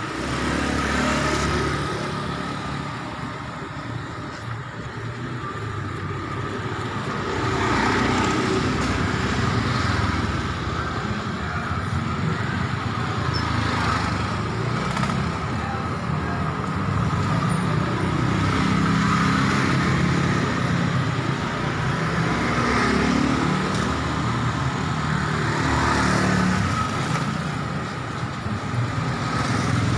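Road traffic: engines of passing vehicles swell and fade several times over a continuous street background.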